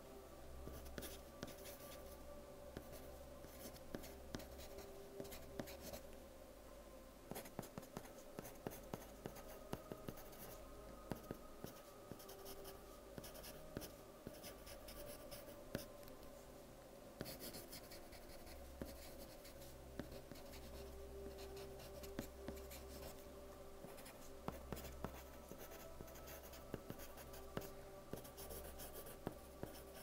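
Soft-lead pencil writing on paper: scratchy strokes and small taps of the lead in quick, irregular runs.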